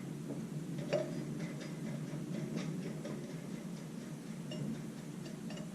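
Scattered light metallic clicks and clinks of nuts, bracket and tools being handled while a throttle control bracket is fitted onto cylinder head studs, the loudest about a second in.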